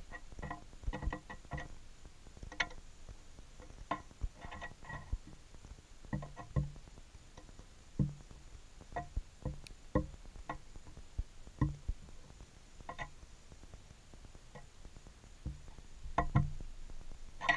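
Irregular taps and knocks from a New Caledonian crow's twig tool probing among pieces of meat on a clear plastic sheet, some with a short hollow ring, with a denser run of knocks near the end.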